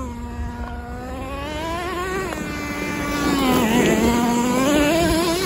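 Traxxas T-Maxx 2.5 nitro RC truck's small two-stroke nitro engine running and revving under throttle as the truck drives over gravel. The high engine note holds, climbs over the first couple of seconds, dips briefly near four seconds, then climbs again.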